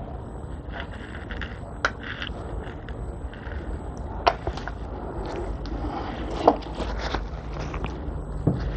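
Scattered small clicks and taps of plastic paint squeeze bottles being squeezed and handled, the sharpest about two, four and six and a half seconds in, over a steady low hum.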